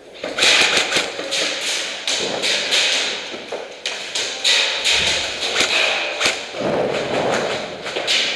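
Airsoft skirmish in close quarters: a dense, irregular run of sharp taps and thuds from airsoft guns firing and BBs hitting wooden walls and cable reels.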